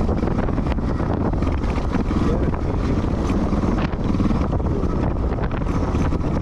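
Motorcycle engine running while riding, with wind noise on the microphone.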